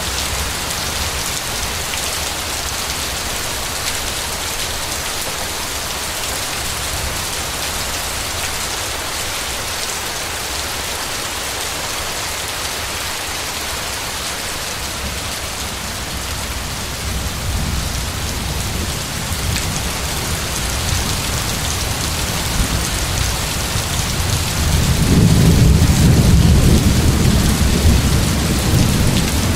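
Steady heavy rain hissing on surfaces through a thunderstorm, with a deep rumble of thunder building about two-thirds of the way through and loudest near the end.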